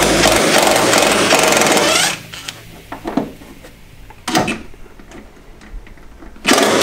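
Small impact wrench hammering in two bursts, undoing 10 mm fasteners on a car's front wheel-arch liner. The first burst ends about two seconds in, a few light knocks follow, and a second burst starts near the end.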